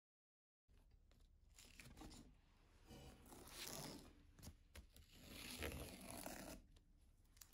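Masking tape being peeled off watercolour paper: faint rasping, with louder swells a few times and some small clicks.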